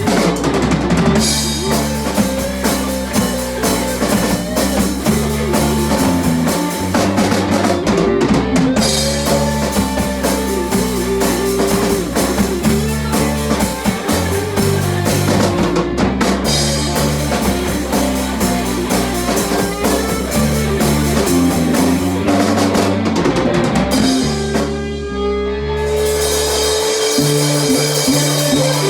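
Rock band music with drum kit, bass and guitar, loud and dense, with a brief drop in the high end about twenty-five seconds in.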